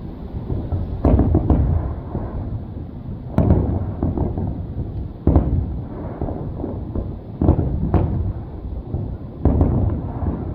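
Aerial fireworks shells bursting overhead, a string of about eight booms a second or two apart. Each boom trails off in a low rumble.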